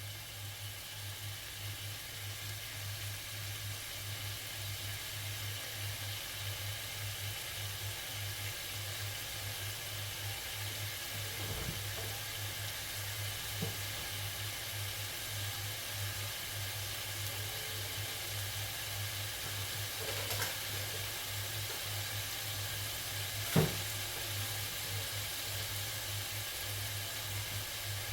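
Food sizzling steadily in a frying pan over a low steady hum, with a few brief knocks of a utensil against the pan, the loudest near the end.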